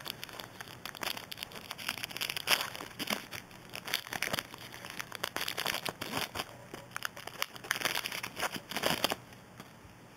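Foil trading-card pack wrappers crinkling and tearing as packs are opened and the cards handled, an irregular run of crackles that dies down about nine seconds in.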